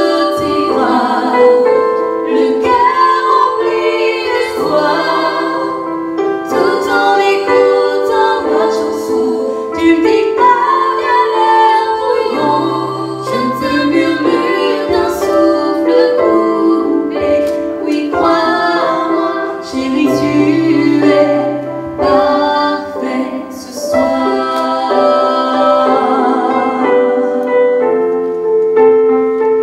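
A woman singing live into a handheld microphone over a piano-led accompaniment, heard through the hall's sound system.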